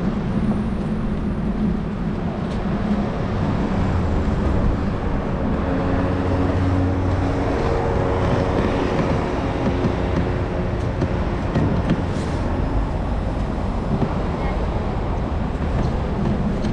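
Steady city street traffic noise, with a vehicle's low engine hum strongest through the middle.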